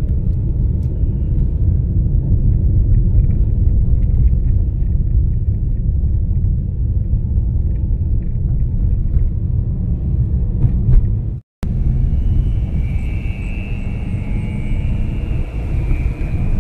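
Car interior noise while driving: a steady low road and engine rumble. About two-thirds through the sound drops out completely for an instant, and after that a steady high buzz joins the rumble.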